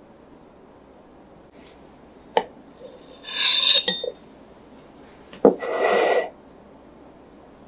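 Tableware handling: a metal cake server clicks, then scrapes on a small ceramic plate for about half a second, the loudest sound. A few seconds later the plate is set down with a knock and slides briefly across a wooden tabletop, with a faint ceramic ring.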